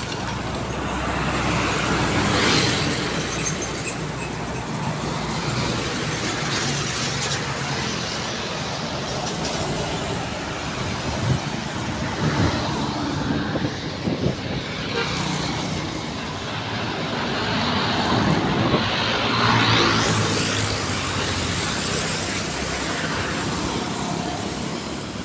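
Road traffic passing close by: trucks and motorcycles drive past one after another, their engine and tyre noise swelling as each one nears. It is loudest about two seconds in and again around twenty seconds in.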